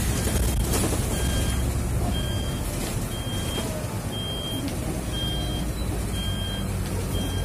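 A bus's electronic warning beeper sounds short high beeps about once a second, over the steady low hum and road noise of the bus driving.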